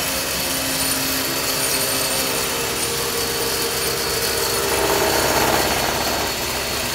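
Woodworking power machine running steadily while working wood, with a louder stretch about five seconds in.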